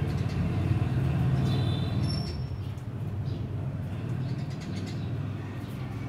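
Steady low vehicle-engine rumble that eases slightly about two and a half seconds in, with a few short high sparrow chirps over it about one and a half and two seconds in.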